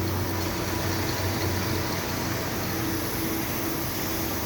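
Factory machinery running with a steady drone and hum.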